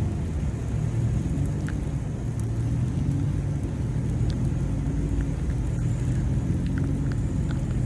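Chevrolet Tahoe driving through deep snow: a steady low engine and road drone, with a few faint scattered ticks over it.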